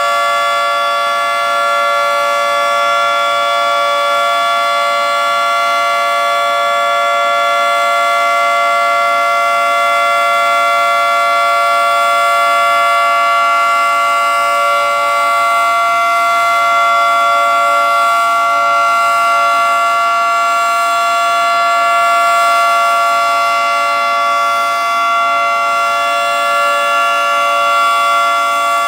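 Federal Signal 2T22A two-tone, 22-port, three-phase outdoor warning siren sounding its steady alert signal: two tones together, held at an unchanging pitch and level.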